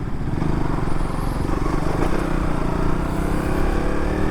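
KTM Duke motorcycle engine pulling under acceleration, its pitch rising steadily, with a steady rush of wind. Heard through a mic inside the rider's helmet.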